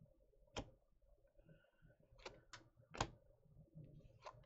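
Faint, sharp clicks of glossy Donruss Optic trading cards being flicked one at a time from the front of a stack to the back. There are about five ticks, two of them close together a little past two seconds in.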